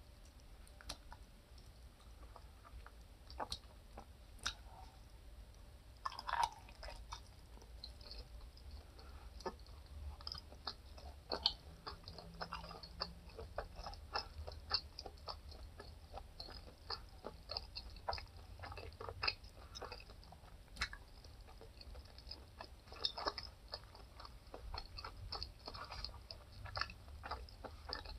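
Close-up chewing and biting of seafood-boil food (shrimp, sausage and corn), with many small wet clicks and crackles that come thicker after the first few seconds.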